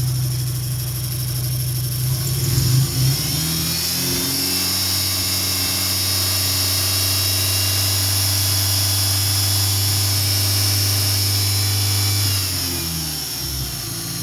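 2003 Dodge Neon's 2.0-litre four-cylinder running rough through an SRT exhaust. It is revved up about three seconds in, held at a steady raised speed, and let back down to idle near the end. It is misfiring on two of its four cylinders because of a failed ignition coil, and the roughness evens out somewhat under throttle.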